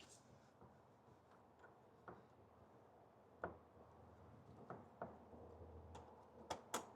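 Faint, irregular clicks and taps from a 3D-printed plastic hood-bolt wrench being turned counterclockwise to unscrew the bolt, coming more often and louder toward the end.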